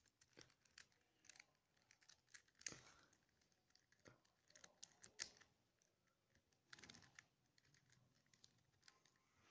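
Faint, scattered clicks and light scrapes of a plastic twisty puzzle's pieces being twisted by hand, with slightly louder clicks about a quarter of the way in and about halfway.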